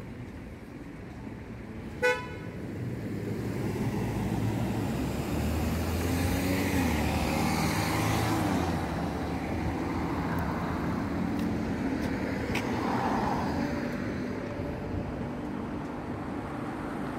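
A single short horn toot about two seconds in, then city street traffic: vehicles running past, with the engine noise swelling through the middle.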